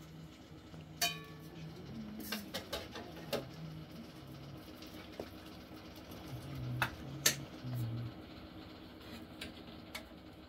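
Metal spoon and ladle clinking and scraping against a steel cooking pot and plates as food is dished out. Sharp clinks come irregularly, one about a second in ringing briefly, and the loudest come about seven seconds in.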